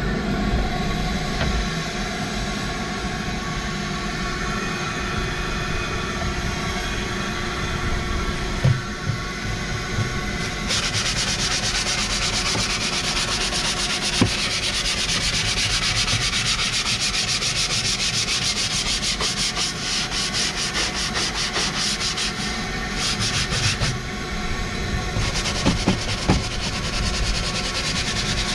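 Stiff hand brush scrubbing the soapy, ribbed rubber floor mat and pedals of a truck cab, a fast rasping run of short strokes. It grows much louder about ten seconds in, breaks off briefly near the end, then resumes. A steady low hum runs underneath.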